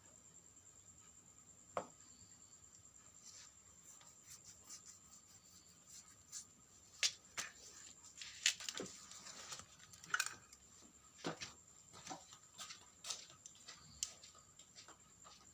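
Irregular light clicks and knocks of small hard parts being handled, most of them in the middle of the stretch, over a faint steady high whine.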